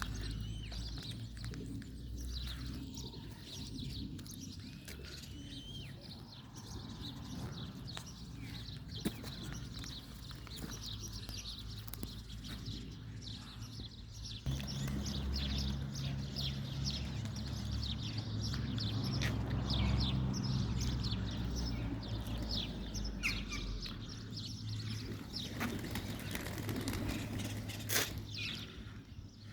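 Small birds chirping, many short high calls overlapping, busier in the second half. A steady low rumble runs underneath and grows heavier for about ten seconds from the middle, with a sharp click near the end.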